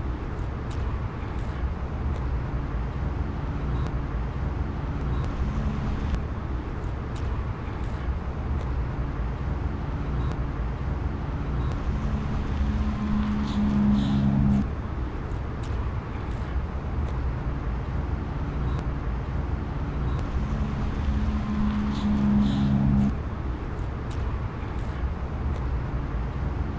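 Steady road traffic rumble with an engine hum that grows louder twice, once around the middle and again near the end, each time cutting off sharply. Faint light ticks are scattered through it.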